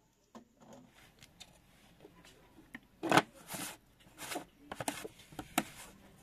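Yellow plastic lid being pressed and twisted onto a plastic jar: a sharp knock about three seconds in, then a run of plastic clicks and short rustles.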